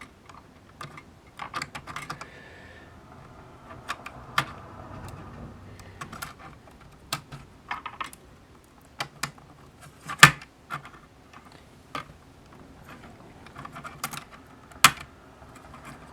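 Irregular small clicks and taps of acrylic case pieces and the oscilloscope's LCD module being handled and fitted together, with two louder clicks about ten and fifteen seconds in.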